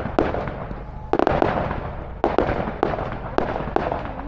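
Fireworks display going off: an irregular run of sharp bangs from bursting fireworks, with a quick cluster of several about a second in, each bang trailing off briefly.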